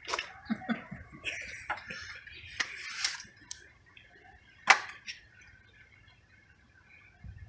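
Scattered light clicks and knocks, thick for the first three seconds or so, then one sharp click near five seconds, after which it goes quiet.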